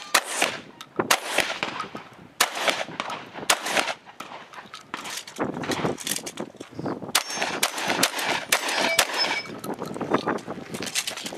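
A string of gunshots, roughly one or two a second, from a shooter working through a competition stage. Some shots are followed by the ring of steel targets being hit.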